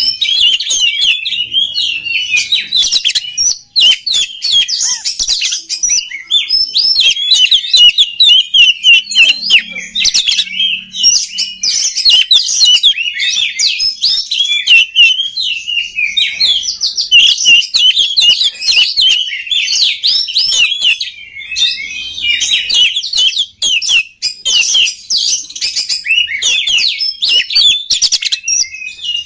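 Oriental magpie-robin (kacer) singing a fast, nearly unbroken stream of high chirps and warbled notes, pausing only briefly a few times.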